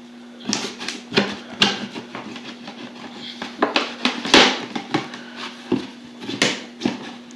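Victorinox Swiss Champ knife blade cutting through a thin plastic bottle: a run of irregular crackles and scrapes of the plastic giving way, loudest about four and a half seconds in.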